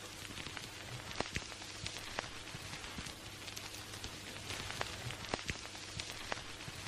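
Faint old-film or record-style crackle: a steady hiss with scattered, irregular pops and clicks over a low steady hum.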